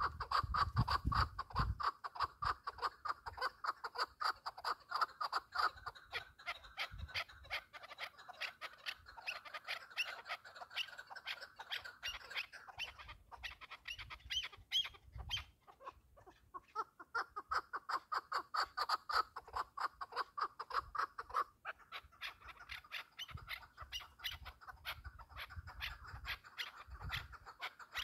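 Partridge calling: a fast, continuous run of clucking notes, several a second, broken by a few short pauses.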